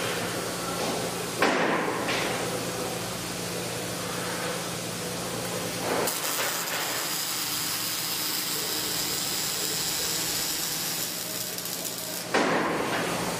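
Robotic arc-welding cell: a steady machine hum with a sharp metallic clank about a second in, then a steady high hiss from about halfway. Near the end the welding arc strikes with a sudden loud crack and keeps going.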